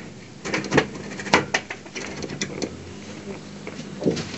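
Pipe-bursting rig drawing a PVC sewer pipe into the old line: a steady low machine hum with irregular sharp clicks and knocks.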